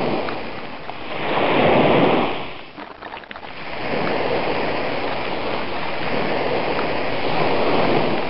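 Ocean surf: a wave swells up and breaks about two seconds in, falls to a brief lull, then a steady wash of surf follows.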